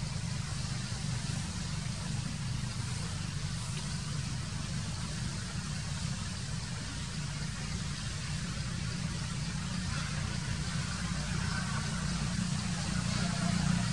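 Steady low engine hum, as of an idling vehicle, under a constant hiss.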